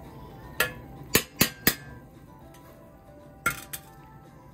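A stainless steel colander clinking against a stainless steel pot as rinsed sorrel is tipped in: four sharp metallic clinks in the first two seconds, then two more about three and a half seconds in, over faint background music.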